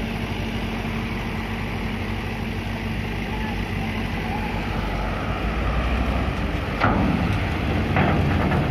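Diesel engines of loaded cargo trucks running, with a low rumble that grows louder in the second half as a truck pulls across the ferry ramp. A sharp knock comes about seven seconds in.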